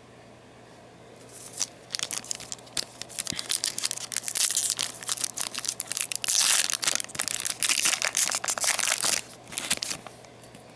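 Foil wrapper of a Yu-Gi-Oh! booster pack being torn open and crinkled: a dense run of crackling that starts about a second in and stops near the end.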